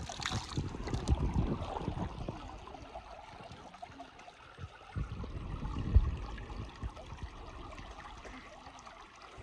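Water splashing and trickling in a shallow canal, with dull low thumps in the first couple of seconds and a sharper one about six seconds in.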